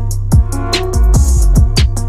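Electronic background music: a hip-hop style beat with deep kick drums that drop in pitch, sharp snare or hi-hat hits and a synth melody.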